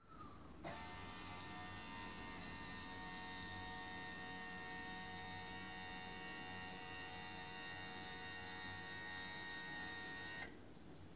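Electric motor of a home-built height-adjusting lift mechanism running with a steady whine as it raises the platform. It starts about a second in and stops near the end.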